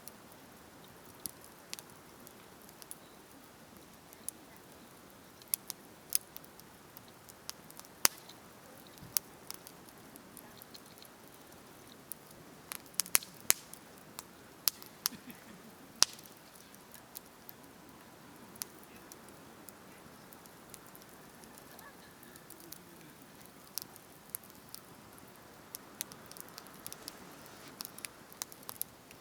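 Wood campfire crackling: irregular sharp pops and snaps over a faint steady hiss, coming more thickly around the middle.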